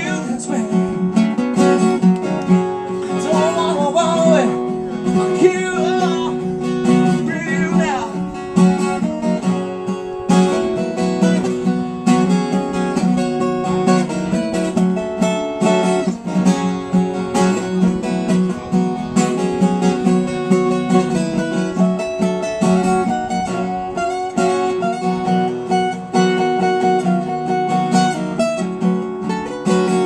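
Acoustic guitar strummed steadily through a small PA in a live original song, with a man singing for the first several seconds and the guitar carrying on alone after that.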